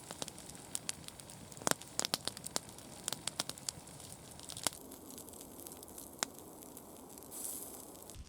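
Campfire crackling, with irregular sharp pops and snaps of burning wood over a steady hiss.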